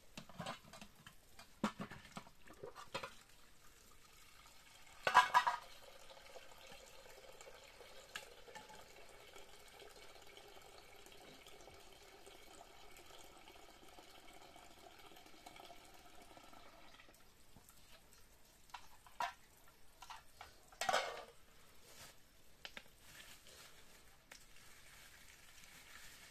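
Water from a thin spout running into a small metal cooking pot, making a steady ringing splash for about ten seconds before it stops. The pot knocks against the stone slab twice: loudly about five seconds in, and again near twenty-one seconds, with a few lighter clinks at the start.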